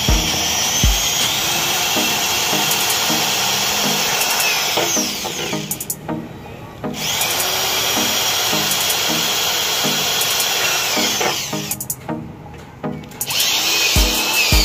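Cordless drill driving screws into an aluminium door frame, running in three long spells with short stops about six and twelve seconds in. Background music with a steady beat plays underneath.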